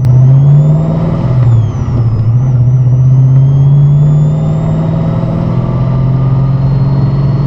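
1969 Pontiac GTO's V8 engine running under way, its revs rising in the first second, dropping briefly near two seconds in, then climbing slowly again.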